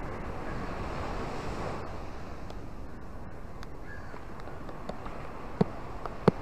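Small waves washing up onto a sandy, rocky beach, a steady surf hiss, a little fuller in the first couple of seconds. Two sharp taps come near the end, louder than the surf.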